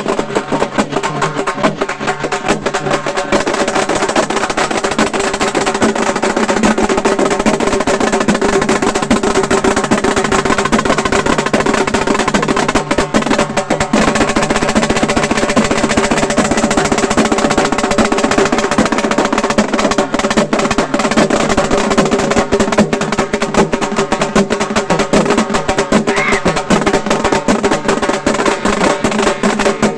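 Halgi ensemble playing: halgi frame drums beaten with sticks in a fast, dense, unbroken rhythm.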